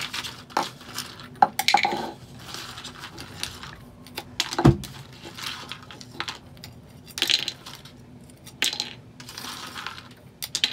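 A plastic spoon scraping across a paper plate and goldfish crackers being tipped into a plastic cup: a run of irregular scrapes, light rattles and clicks, with one sharper knock near the middle.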